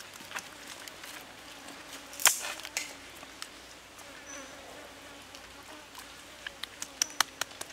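Hands rubbing and pressing seasoning into raw chicken on a wooden chopping block: soft wet slaps with sharp taps, the loudest about two seconds in and a quick run of clicks near the end. A faint buzz sits underneath.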